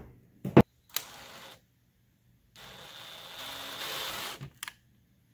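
DeWalt 20V cordless drill boring a twist bit through the wall of a PVC pipe clamped in a bench vise: a short run, then a steadier run of about two seconds. A sharp knock comes about half a second in.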